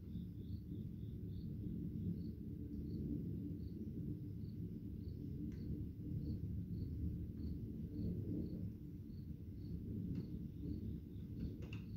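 Crickets chirping steadily at night, about two chirps a second, over a steady low rumble.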